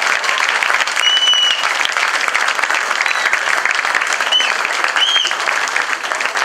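Audience applauding, a dense steady clapping, with a few brief high tones over it about a second in and again about four and a half and five seconds in.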